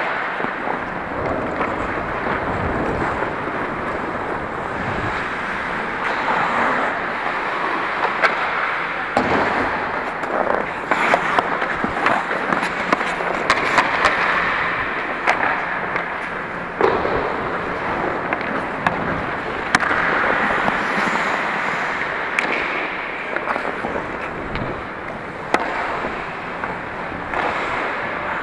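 Ice hockey skates scraping and carving on the ice, with frequent sharp clacks of sticks and puck.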